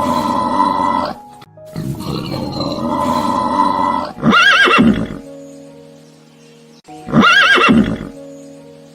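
A horse whinnying twice, short and quavering, about four and seven seconds in, over steady background music. It is preceded by two long, rough animal calls.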